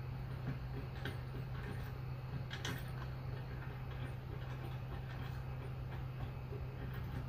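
Light metallic clicks and taps of bolts being threaded by hand into the leg of a Curt fifth-wheel hitch, left loose rather than tightened. A few separate clicks, the clearest near the middle, sit over a steady low hum.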